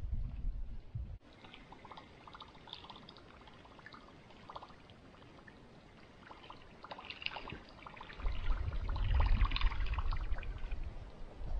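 Small lake waves lapping and trickling against a shoreline boulder in irregular little splashes. A low rumble of wind on the microphone comes in about eight seconds in and is the loudest sound.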